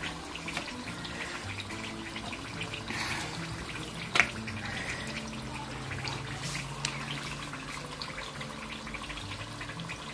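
Steady rushing hiss of a gas stove burner under a comal where corn tortillas are warming, with a single sharp tap a little after four seconds in.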